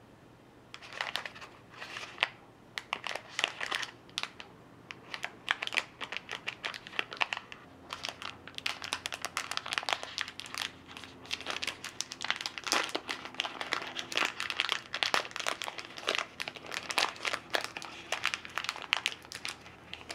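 Plastic snack wrapper crinkling as hands pull an individually wrapped mochi's packet open at the seal and peel it back. It starts about a second in, with many sharp crackles, and gets busier from about eight seconds.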